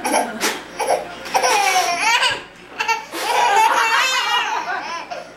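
A toddler laughing in repeated bursts, with adults laughing along. The longest run of laughter comes about three seconds in.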